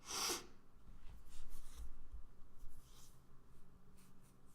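A short, noisy breath close to the microphone at the start, then faint scattered clicks from a computer keyboard and mouse over a low steady hum.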